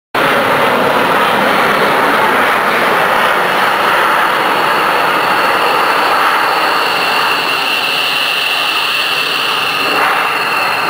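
Two F-16 fighter jets passing overhead: a loud, steady jet-engine roar that cuts in suddenly, with a high whine that grows stronger in the second half.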